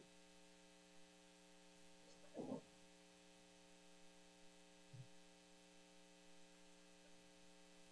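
Near silence with a faint steady electrical hum, and a brief faint sound about two and a half seconds in.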